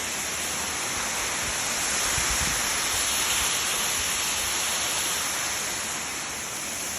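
Waterfall rushing: a steady, dense hiss of falling water, swelling slightly a couple of seconds in.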